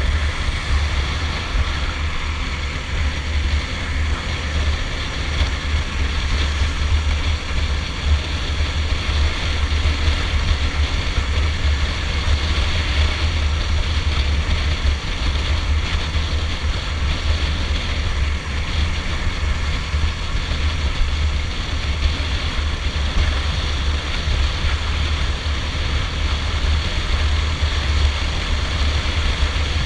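Stallion Centaur 250 Max motorcycle cruising at a steady speed, its engine running under a heavy, fluctuating wind rumble on the microphone.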